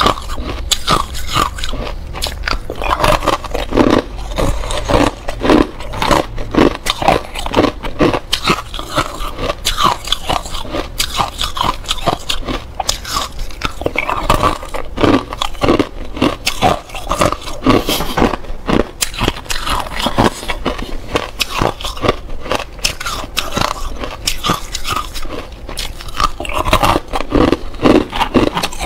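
Thin clear ice being bitten and chewed close to a microphone: a continuous run of sharp, brittle crunches.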